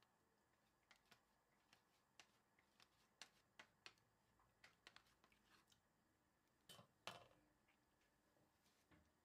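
Faint, irregular clicks and taps of a wooden ladle against a plastic strainer and a stainless steel pot as a yogurt and flour mixture is pressed through the strainer into soup. Later come two louder knocks with a short scrape.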